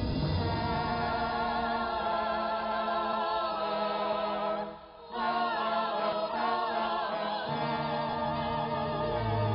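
Film score: a choir singing long held notes with vibrato over low sustained notes, breaking off briefly about five seconds in.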